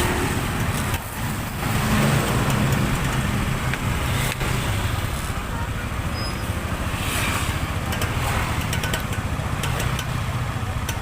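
Road traffic noise with a large vehicle engine running steadily, and voices in the background.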